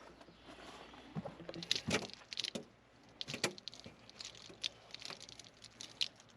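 Irregular light clicks, taps and small rattles from hands working with door fittings and mesh, about a dozen spread over a few seconds.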